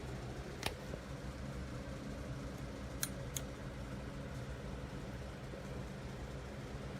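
Steady low machine hum, like a fan running, with three sharp clicks: one just under a second in and two close together about three seconds in.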